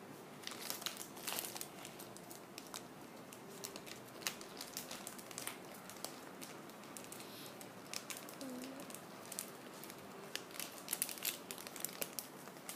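Plastic packaging crinkling as it is handled, in irregular crackles, busiest about a second in and again near the end.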